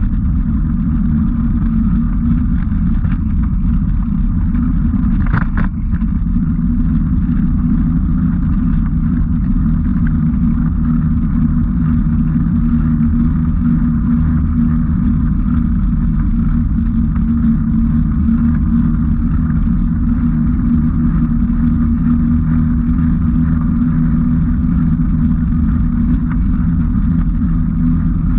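Steady running noise of a vehicle being ridden along a gravel path: a constant low hum and rumble, with one short knock about five and a half seconds in.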